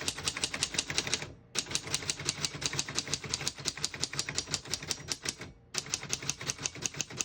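1931 Smith-Corona portable typewriter being typed on: a fast, even run of metal typebar strikes, about seven a second, with two brief pauses.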